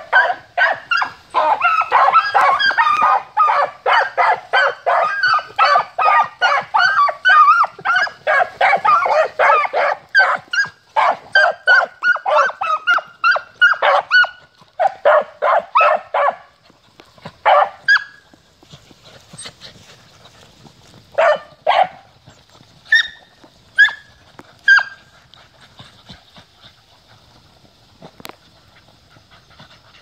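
Beagle puppies barking and yelping in a rapid, continuous run, thinning out about halfway through to a few scattered barks that stop after about 25 seconds.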